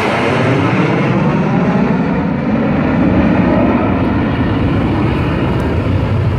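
Four F-16 fighter jets passing over in formation and flying away: a loud, steady jet roar with a falling sweep as they go by.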